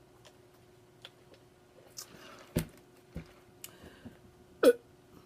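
Food packaging and items being handled on a table: light clicks and taps, a brief rustle, and two dull thumps as things are set down, with one short, louder sound near the end.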